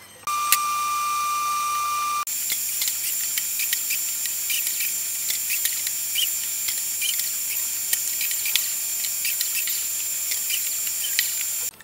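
Biscuit joiner's motor running with a dust-extraction vacuum hose attached: a steady high whine with fast light ticking, its tone changing abruptly about two seconds in and cutting off suddenly near the end.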